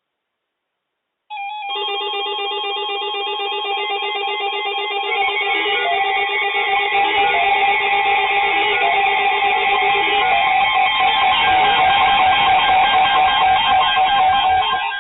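Instrumental music with stepping melodic lines, starting suddenly about a second in and growing fuller and louder, with a low end coming in around five seconds in.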